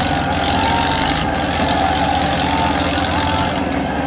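Tractor's diesel engine running steadily at low revs, with a crowd shouting over it.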